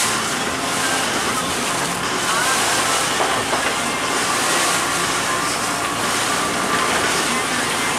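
Wind and choppy sea water with a boat engine running underneath, the hiss swelling in surges every second or two.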